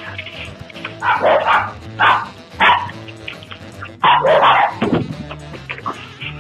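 A dog barking in short, sharp barks, about five or six of them a second or so apart, over background music.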